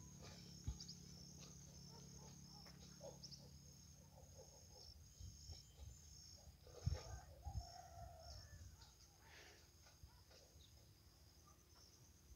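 Near silence: faint rural outdoor ambience with insects chirping in short, high, repeated chirps, and a couple of soft thumps about seven seconds in.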